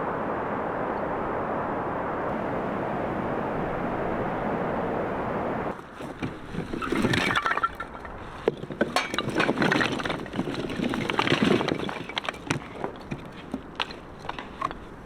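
A steady hiss for about six seconds, then after a sudden cut a run of irregular clinks, clatters and knocks, like camping gear being handled.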